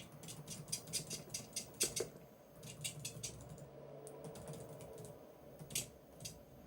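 Computer keyboard typing: quick runs of key clicks, then a few single keystrokes near the end, with a faint low hum about halfway through.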